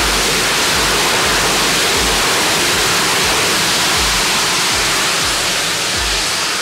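Hybrid rocket engine burning nitrous oxide with polypropylene and polyamide fuel, firing on a static test stand: a loud, steady hissing roar that eases slightly near the end.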